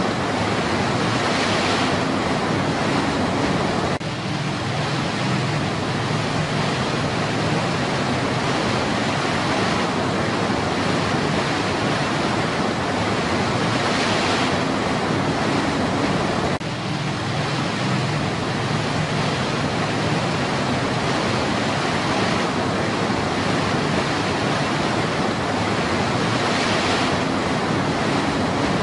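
Steady rush of white water pouring over rocks in a stream's rapids, with two brief dips in level.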